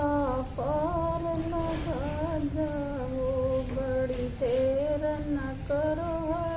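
A woman singing a slow Hindi song unaccompanied, a line of long held notes that slide from one to the next with no clear words.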